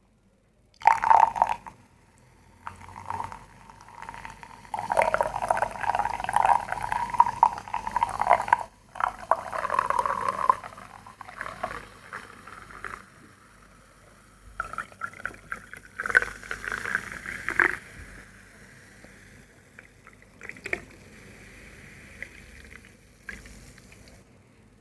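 Liquid being poured in several separate pours with short pauses between them, the pitch of the pour sitting around a middle tone.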